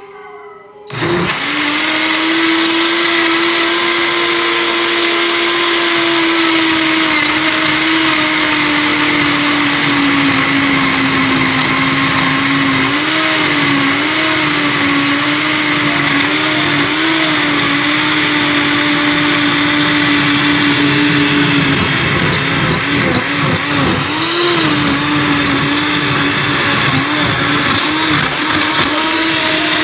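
Electrolux Expressionist blender switched on about a second in, its motor running loud and steady while it blends a block of frozen strawberries with yogurt. The motor's pitch wavers and dips several times, most around the last third.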